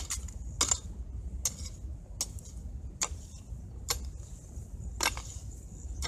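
Small hand hoe chopping into stony, gravelly soil, about seven sharp strikes roughly one a second, as a sample is dug out.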